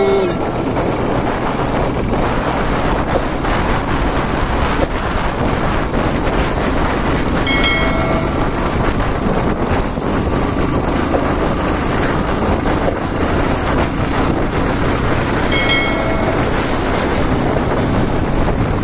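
Steady rumble of wind and engine while riding a motorcycle along a road. A short tone-like chime sounds twice, about eight seconds apart.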